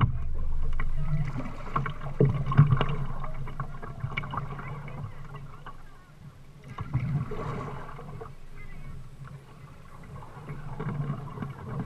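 Water sloshing and dripping around a plastic kayak as it is paddled, with scattered sharp knocks and splashes in uneven swells.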